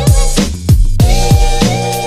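Background music with a steady beat and deep kick drums that drop in pitch.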